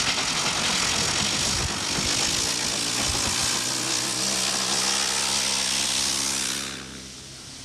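Railway locomotive running: a loud, steady rushing noise that drops away sharply about seven seconds in.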